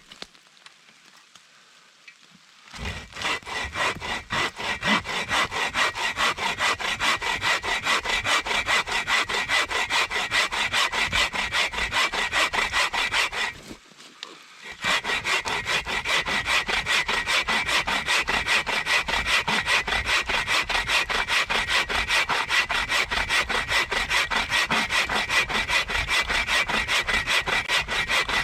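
Hand saw cutting through a tree trunk with fast, even back-and-forth strokes, starting about three seconds in, with a brief pause about halfway.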